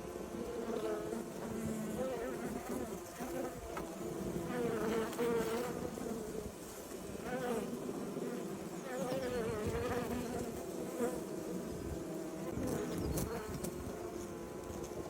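Several bees buzzing at once, their overlapping hums wavering up and down in pitch as they fly close by.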